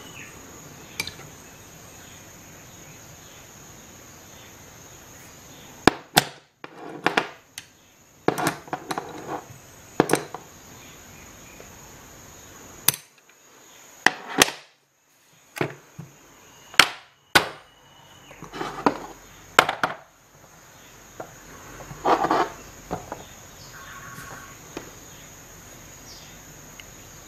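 Facom tools and their plastic case being handled: a series of sharp metal clinks and knocks as the chrome sockets, ratchet and ratcheting combination wrench are moved and set down and the case is closed, starting about six seconds in.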